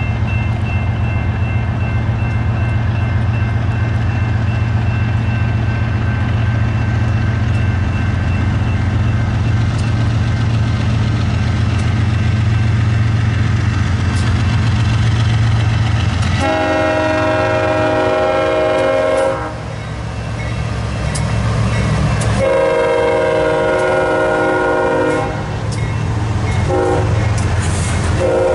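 BNSF diesel locomotives rumbling steadily as they approach. Then the air horn sounds the grade-crossing signal: two long blasts, a short one, and a final long blast beginning near the end.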